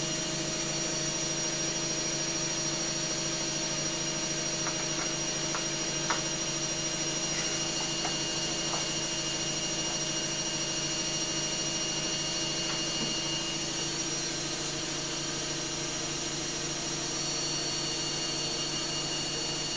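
A steady droning hum with a thin high whine over it, from an unseen appliance or motor. A few faint clicks and rustles come about four to nine seconds in, as a Siamese cat roots about in a canvas handbag.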